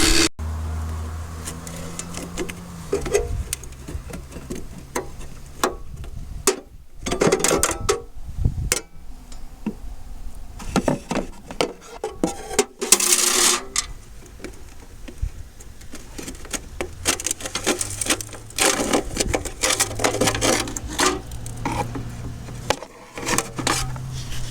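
Metal clanks, scrapes and rattles as the screens of an electric drywasher are pulled out and cleaned, with its motor switched off sharply at the start. A faint low motor hum comes back in the second half.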